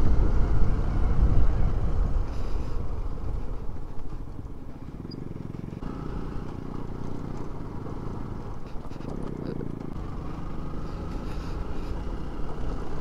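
Motorcycle engine running under way, with wind rushing over the rider's camera microphone. The sound is loud at first, then eases off about four seconds in as the bike slows onto a rough dirt track.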